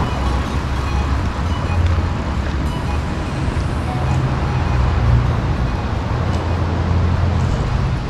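Steady low road rumble of a car driving, with background music.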